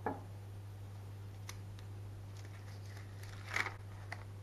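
A knock as a wooden meat mallet is set down on a marble worktop, then baking paper crinkling in short bursts as it is handled, the loudest about three and a half seconds in, over a steady low hum.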